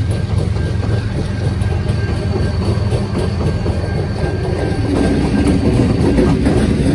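Several diesel freight locomotives of a Canadian National train passing close by: the engines' steady low drone and the rumble of wheels on the rails, a little louder from about five seconds in as the next unit draws level.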